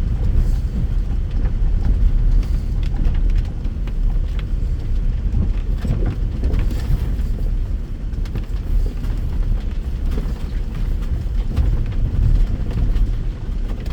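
Land Rover Discovery driving over a rough off-road track: a steady low rumble of engine and tyres, with frequent small knocks and rattles.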